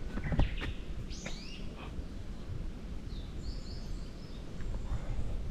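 Small birds calling: runs of short, falling whistled notes about a second in and again a little past three seconds, over a steady low rumble. A few footsteps on the stone path near the start.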